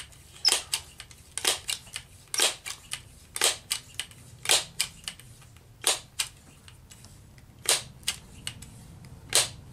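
Crosman 1377 multi-pump pneumatic air pistol being pumped up with its pump lever: about eight strokes at roughly one a second, each a sharp clack with smaller clicks around it.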